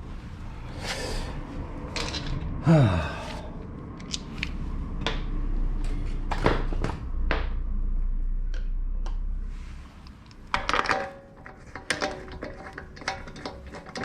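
Metal clinks, clacks and knocks of a car wheel and its wheel bolts being handled and fitted at the hub, with a low steady hum for several seconds in the middle.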